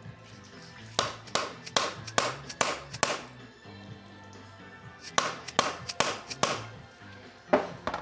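A series of light, sharp taps on an oil-filled shock absorber body: about six in quick succession, a pause, four or five more, then two near the end. The taps knock air bubbles loose from the fresh shock oil. Background music plays underneath.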